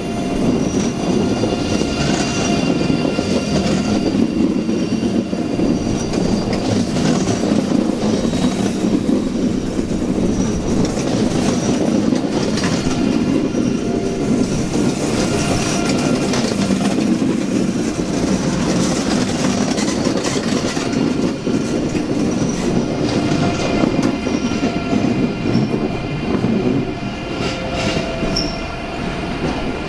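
ICE high-speed train pulling slowly out of the station over curved track and points: a steady rolling rumble with high wheel squeal on the curves and scattered clicks over the rail joints.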